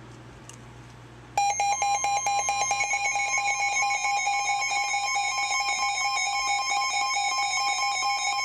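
Weather radio broadcast hissing quietly, then about a second and a half in a loud, steady emergency alert tone starts and holds, two pitches sounding together, the alert signal that comes before a new warning message.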